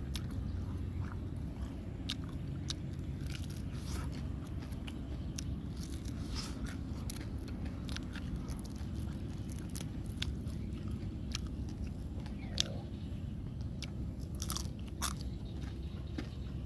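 A person biting and chewing grilled catfish up close, with many short crunchy clicks from the crisp skin or bones, over a steady low rumble.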